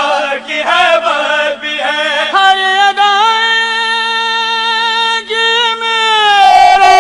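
A solo voice chanting a devotional Urdu poem, in short melodic phrases and then, from about two seconds in, one long wavering held note, over a steady low hum.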